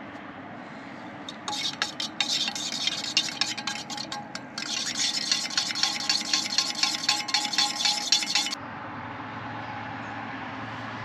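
A utensil stirring and scraping quickly in a bowl or dish, in fast clicking strokes. It starts about a second and a half in and stops abruptly after about eight and a half seconds, over a steady hum of distant traffic.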